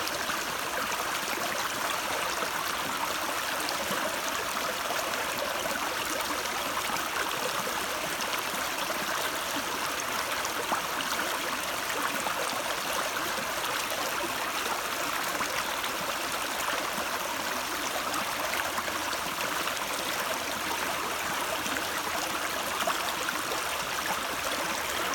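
A stream flowing steadily, a continuous rush and gurgle of running water.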